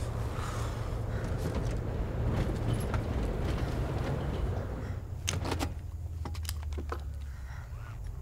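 Steady low rumble of tyres and engine heard inside an SUV's cabin while driving. The noise eases about five seconds in as the vehicle slows, with a few light clicks and rattles.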